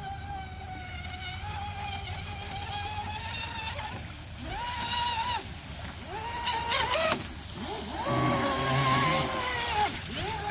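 Battery-powered RC speedboat's motor whining out on the water: a steady high whine at first, then several bursts that rise and fall in pitch as the throttle is opened and eased off, with a few sharp crackles about six and a half seconds in.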